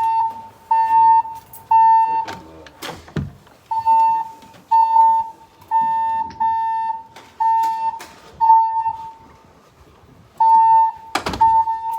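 Building fire alarm sounding its evacuation tone: loud half-second beeps of a steady tone near 1 kHz, about one a second, with longer pauses of about two seconds between runs of beeps. Two sharp knocks are heard, the louder near the end.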